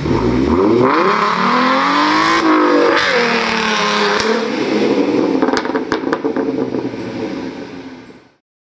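Car engine revving hard, its pitch climbing twice in the first three seconds, then held at high revs with a rougher, noisier tone as the car does a tyre-smoking burnout, with a few sharp ticks partway through before it fades out near the end.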